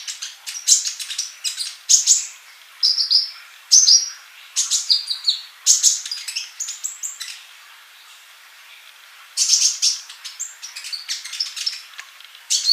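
Sunbird (the 'kolibri' of the Indonesian bird trade) singing a fast, high-pitched string of chirps and trills, many notes sliding downward, in short bursts, with a pause of about a second and a half past the middle. It is a tutor song recording used to train caged birds to sing.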